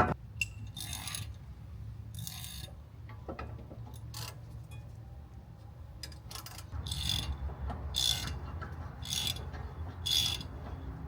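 Hand ratchet wrench with a 17 mm socket clicking in short runs of back-strokes, working a stubborn brake caliper bolt. About seven bursts of clicking come at uneven intervals, several of them close together in the second half.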